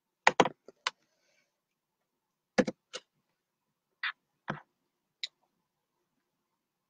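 Computer keys being pressed: about ten short, sharp clicks at irregular intervals, some in quick pairs, with gaps of a second or more between them.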